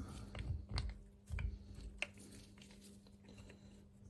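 Small handling noises from brake caliper parts being worked by hand: a few soft knocks and short sharp clicks of a pad pin and retaining clip being fitted, over a steady low hum.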